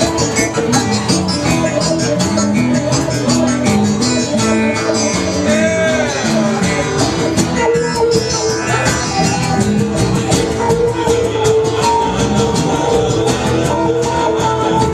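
Live rock band playing an instrumental passage: guitar over bass and a steady drum beat.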